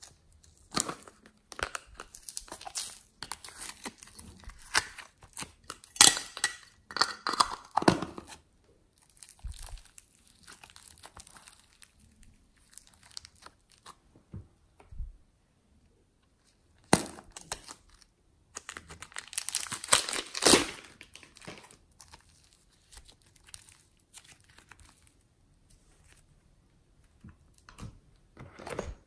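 A thin plastic cup crinkling and soft modelling clay tearing as hands squeeze the clay out and pull it apart. It comes in irregular bursts of crackles and rustles, with quiet pauses between.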